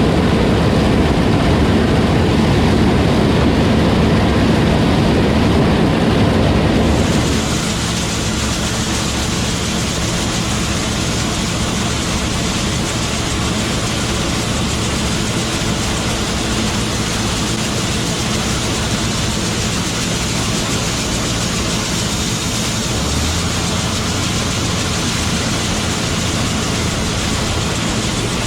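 Heavy farm machinery running steadily, a loud engine drone with a constant hum. About seven seconds in the sound shifts abruptly: the deep rumble drops and a higher hiss comes in, and then it runs on steadily.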